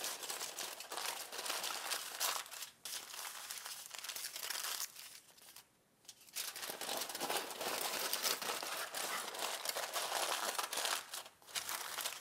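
Aluminum foil crinkling and crackling as it is folded and pressed by hand, double-wrapping a food packet. About halfway through it stops for about a second, then the crinkling resumes.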